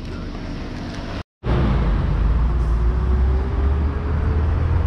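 Road traffic: after a short cut-out, a loud low rumble of vehicles on the road, with one engine's tone rising slowly over the last couple of seconds as a vehicle pulls away.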